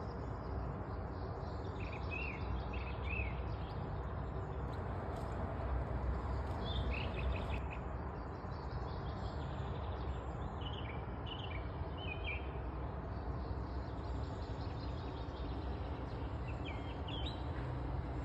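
Small birds chirping in short bursts, in four or five separate clusters, over a steady background noise.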